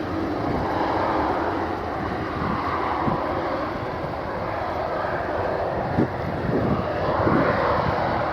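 Jet airliner engines running with a steady rushing roar that swells a little near the end, with wind gusts rumbling on the microphone.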